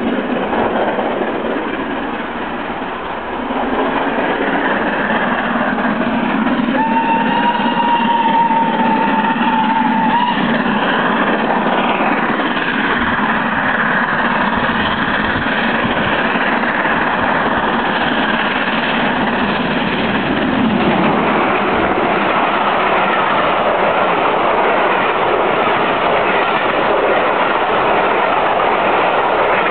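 LMS Stanier Class 5 4-6-0 steam locomotive 45231 approaching and passing at speed with a train of coaches, the wheels clattering along the rails. A steady whistle sounds for about three seconds, some seven seconds in.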